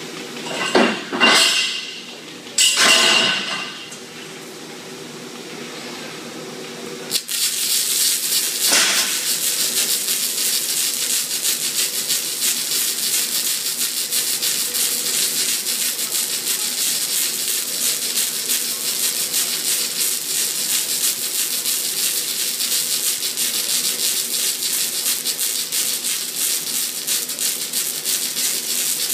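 A few loud, brief noises in the first few seconds, then about seven seconds in two robotic MIG welding torches strike their arcs on a tube and keep welding with a steady, dense crackling hiss.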